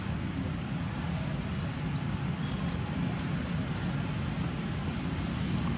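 Short, high-pitched chirps repeating irregularly, a few each second, some drawn out for about half a second, over a steady low rumble.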